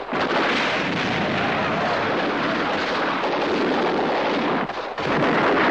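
Rapid, continuous blank gunfire from a mock WWII battle, with a brief lull near the end.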